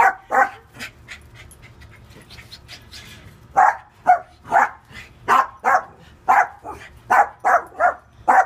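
Small dogs barking excitedly at a gate as their owner comes home: two barks at the start, a lull of about three seconds, then a quick run of barks about two a second.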